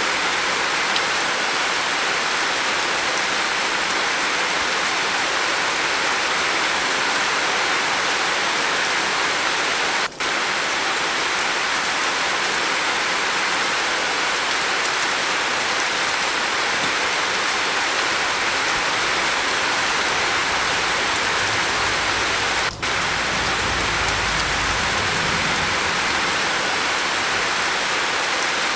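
Steady heavy rain on a roof, an even hiss, with two brief dropouts in the sound. A low rumble comes in about three quarters of the way through and fades.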